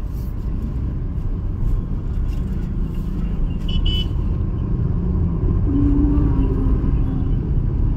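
Road traffic heard from inside a moving vehicle: a steady low rumble of engine and road noise, with a short high-pitched horn toot about four seconds in and a brief lower tone about six seconds in.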